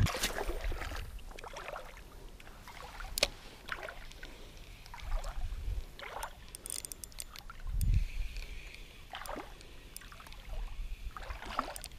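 Shallow water sloshing and lapping in irregular bursts as a spinning reel is wound in to retrieve a lure.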